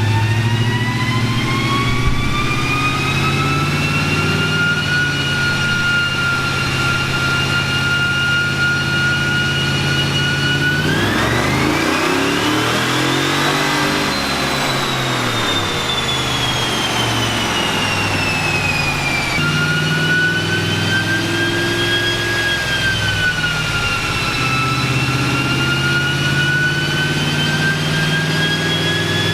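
Truck engine running under load on a chassis dyno during a tuning pull, with a high whine over the engine. The pitch climbs slowly, jumps up sharply about eleven seconds in, winds back down, then climbs again near the end.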